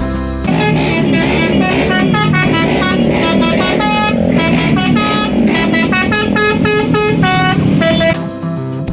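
Basuri telolet bus horn playing a quick tune of short, stepped multi-tone notes, over background music.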